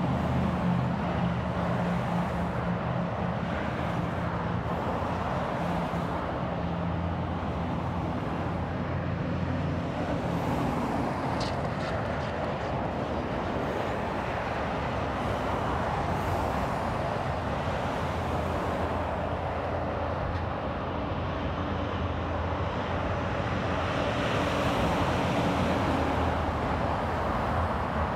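Steady roar of multi-lane interstate traffic, cars and trucks passing below in an even rush of tyre and engine noise, with a low engine hum underneath. A brief high squeal comes about eleven seconds in.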